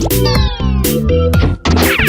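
Electronic background music with a steady beat, with a falling swoop sound effect about a quarter second in.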